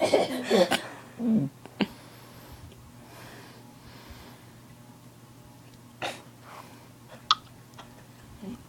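Short bursts of mouth noises made by a person, a quick run of them in the first second or so, a sharp click shortly after, then mostly quiet with two brief noises later on.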